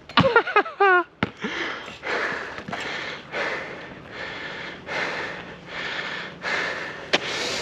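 Heavy, rhythmic breathing close to the microphone, a loud noisy breath about every 0.7 seconds, the panting of someone winded from running about with a ball.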